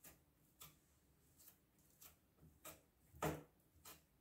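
Near silence with a few faint, short taps, the loudest a little over three seconds in: a hand pressing balls of tart dough flat on a countertop.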